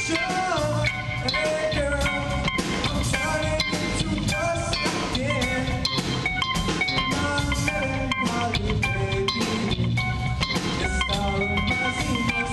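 A rock band playing live: drum kit and electric bass guitar with guitar, a steady beat under melodic lines that bend and slide in pitch.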